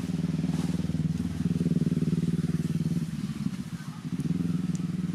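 A motorcycle engine running steadily, easing off briefly about three and a half seconds in and then picking up again.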